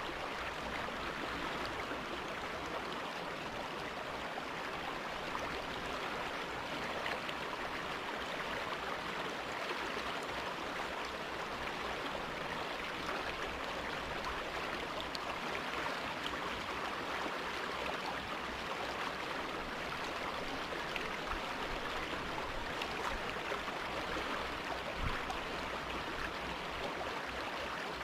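River water rushing and babbling over rocks, a steady even rush with small splashes.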